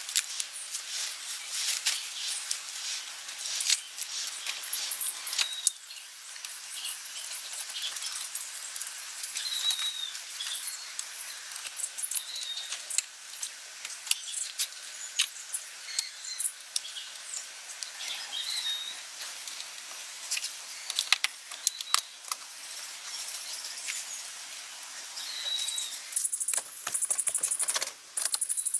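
Scattered light clicks and rattles, like small objects being handled, with short bird chirps every few seconds; the rattling gets busier near the end.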